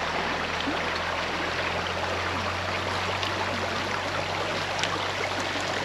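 Steady rush of flowing stream water, even and unbroken, with a low steady rumble underneath.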